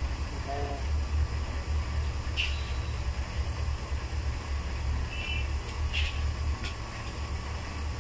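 Handheld hot-air plastic welding gun running steadily, its blower giving a constant low hum and hiss as it heats a waterstop joint for welding. A few short high chirps sound over it.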